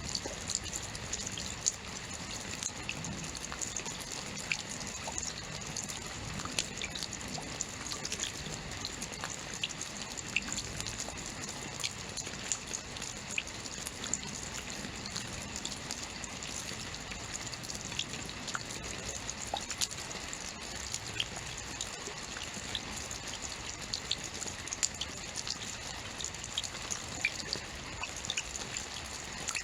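Steady rain falling, with irregular close drips and patters ticking through the even hiss.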